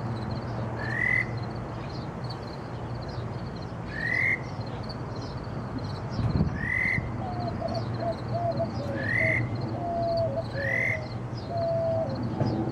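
Mockingbird singing a short, harsh rising note, repeated every two to three seconds.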